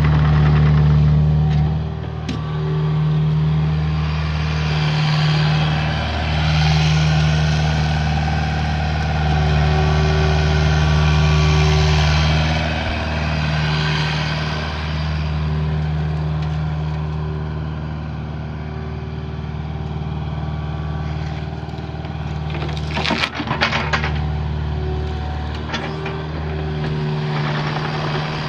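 Mini excavator's diesel engine running steadily, with the hydraulic whine rising and falling as the machine works under load. A short burst of sharp knocks comes about three-quarters of the way through.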